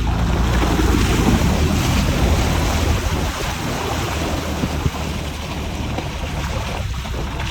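Strong wind buffeting the microphone: a loud, steady rush with a heavy low rumble, easing slightly partway through.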